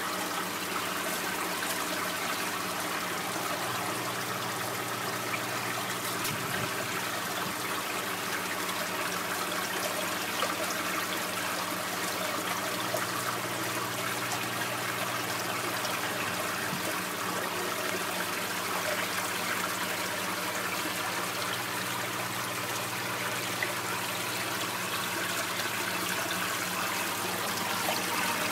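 Steady trickling and bubbling of water in an aerated aquaponics tilapia tank, with a low steady hum underneath.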